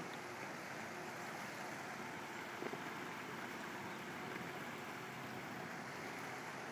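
Steady outdoor background noise, an even hiss with no distinct source standing out, broken once by a single click about two and a half seconds in.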